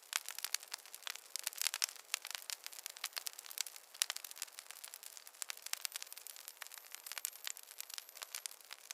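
Wood fire in a fireplace crackling, with many small sharp pops coming thick and irregular.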